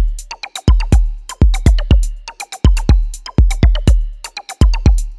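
Electronic background music with a steady beat: deep kick-drum thumps with sharp clicking percussion between them.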